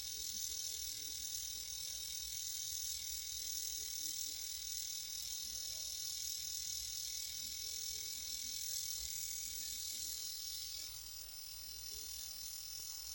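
A small battery-powered eyebrow trimmer running with a steady high buzz as it is worked over the brow hairs. The buzz changes slightly near the end.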